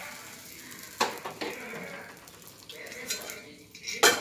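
Metal lids knocking against appam pans on a gas stove: a sharp knock about a second in, another just after, and the loudest clank near the end as a lid is set down. Faint sizzling of batter in the hot pans runs underneath.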